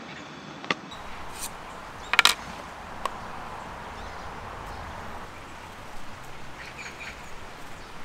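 A few sharp clicks and knocks over steady outdoor background, the loudest a quick cluster about two seconds in, with faint bird calls near the end.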